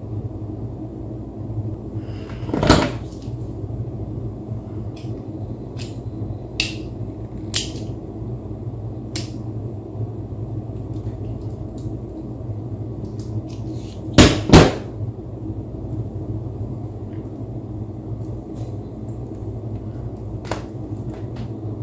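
Small tools and cable parts being handled on a bench: scattered light clicks and two louder clacks, one about three seconds in and a double one around fourteen seconds, over a steady low hum.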